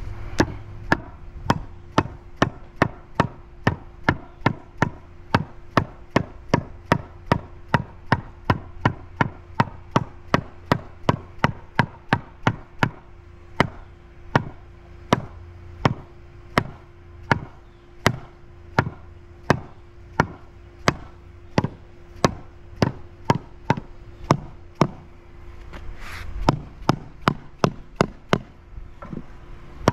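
A mallet tapping a marble paver down into its bed, seating it level. The strikes are steady and even, about two a second.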